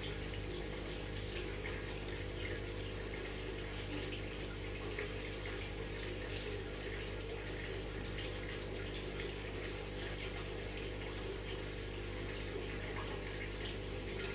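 Aquarium water trickling and bubbling steadily, with many small splashes, over a steady low hum.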